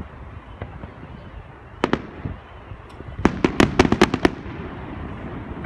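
Fireworks bursting: two sharp bangs a little before two seconds in, then a rapid volley of about eight bangs between three and four and a half seconds, over a low steady outdoor rumble.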